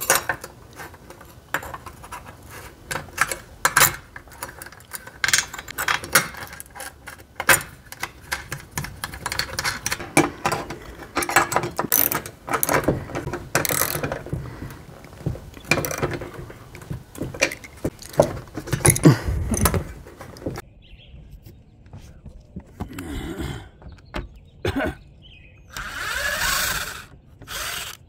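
Bolts and aluminium mounting brackets clicking and clinking as they are fitted to a solar panel's frame, with a socket wrench ratcheting. Near the end a cordless drill runs once for about a second and a half.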